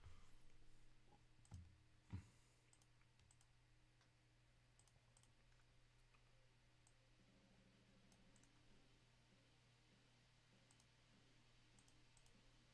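Near silence: faint taps and clicks of trading cards being handled and set down on a table, two of them a little louder about a second and a half and two seconds in, over a steady low hum.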